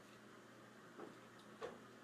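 Near silence with two faint short clicks, about a second in and again about two-thirds of a second later; no burp comes.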